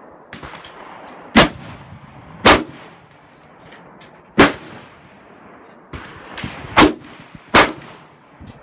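Five loud shots from an AR-style semi-automatic rifle fired at an irregular pace, each a sharp crack with a short ringing tail, with a few fainter shots in between.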